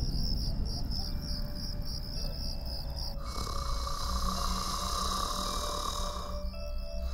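Crickets chirping at night in a steady, rapid rhythm. From about three seconds in, a louder, continuous insect buzz takes over for a few seconds before the chirping returns, over a low rumble.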